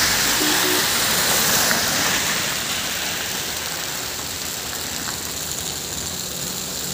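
Road traffic noise on a wet road: a steady hiss and rumble, loudest at the start and easing off over the first few seconds as a vehicle passes.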